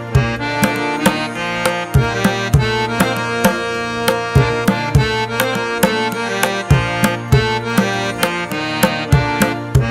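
Background music: a steady percussion beat of about three strikes a second over a sustained melody.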